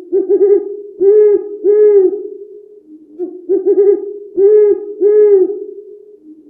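An animal's low calls, repeated in two phrases of three short notes each, over a steady hum; the sound cuts off abruptly at the end.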